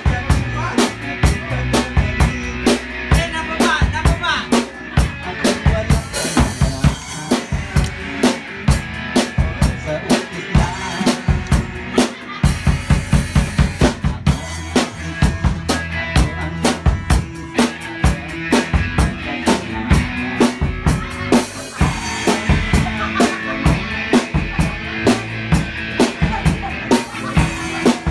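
Live band music: a drum kit played steadily with bass drum and snare hits over a strummed acoustic guitar.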